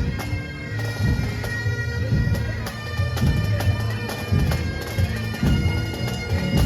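Highland bagpipes of a marching pipe band playing a tune over their steady drones.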